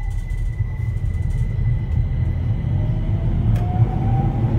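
Keihan 800 series train running, heard from inside the car: the rumble of wheels and motors grows louder while the whine of its Toyo Denki three-level IGBT VVVF inverter rises in pitch, the sound of the train accelerating. A steady high tone sits over it, and there is one short click near the middle.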